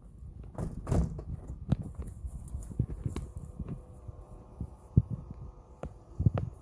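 Irregular low thumps of footsteps and handling as the phone is carried across the garden. Near the end, the faint steady hum of the motorised folding-arm awning's electric motor starts as the awning begins to extend.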